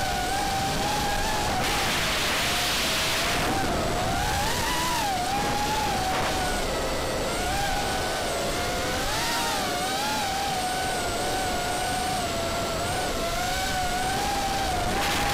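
Small FPV racing quadcopter's brushless motors whining close up, the pitch wavering up and down as the throttle changes. Rushing air noise rises over it about two seconds in and again near the end.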